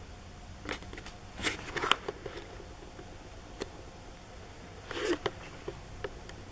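Handling noise: a handful of light clicks and short rustles over a quiet room. The loudest come about two seconds in, with another cluster about five seconds in.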